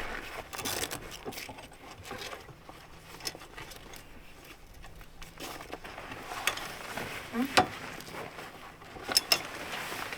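Footsteps and the handling of camping gear: scattered scrapes, rustles and light taps. There is one sharp knock about three-quarters of the way through, and two more close together near the end.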